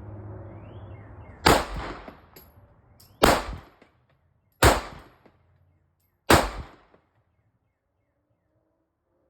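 Four gunshots from a firearm on a shooting range, evenly paced about a second and a half apart, each with a short echoing tail.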